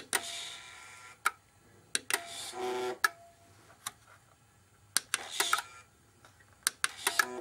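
Sharp clicks from the push button, slide switches and relays of a Minx Microdrives model railway point controller. Between them the small point actuator runs briefly three times, each run under a second, as the point is recalibrated over its throw range.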